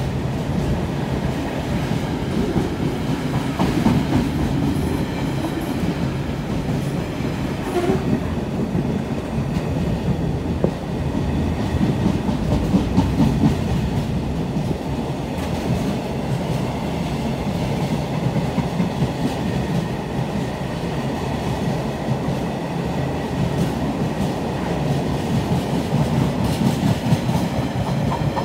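Intermodal container freight train's wagons rolling past close by, a steady rumble of steel wheels on rail that carries on throughout, the later wagons running empty.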